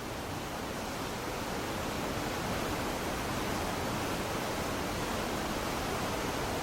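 Steady rush of running water, an even hiss without a rhythm of waves, fading in over the first two seconds or so and then holding.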